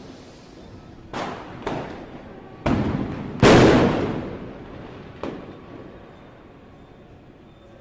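Firecrackers exploding: five sharp bangs over about four seconds, the fourth the loudest, with a long rolling echo after it.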